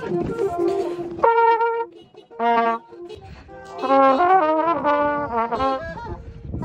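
Brass instruments playing loud held notes in stops and starts, then a quick run of changing notes about four seconds in.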